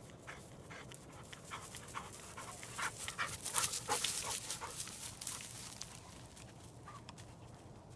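German shorthaired pointer panting in quick breaths as it runs close by, loudest about halfway through and fading away after.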